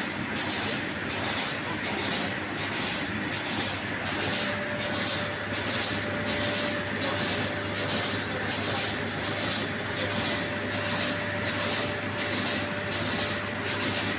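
Zhengmao automatic window-patching machine running, with a high hiss pulsing at an even beat of roughly twice a second over a steady low hum.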